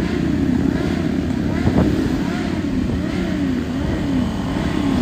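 Kawasaki inline-four sport motorcycle engine revved in quick repeated blips, its pitch rising and falling over and over.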